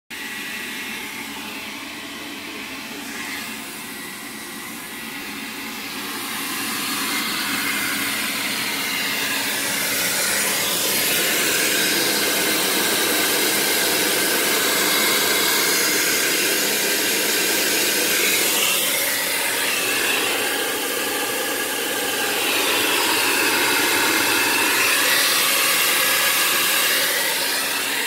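Samsung RF28HMEDBSR refrigerator's fan running with a loud, steady mechanical noise that grows louder several seconds in: the fan is hitting ice built up in the back of the unit.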